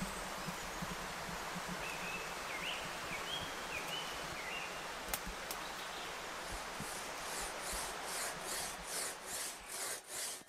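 Outdoor woodland background with a small bird giving a short run of chirps. Past the middle a hand saw starts cutting wood, a regular back-and-forth at about three strokes a second.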